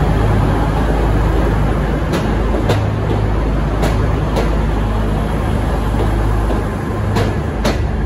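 V/Line VLocity diesel railcar train departing at low speed: the underfloor diesel engines make a steady drone, and three pairs of sharp clicks, each pair about half a second apart, mark the wheels crossing a rail joint.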